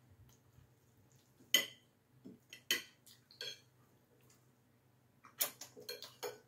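Cutlery clinking against china plates during a meal: a few separate sharp clinks, then a quick run of clinks near the end.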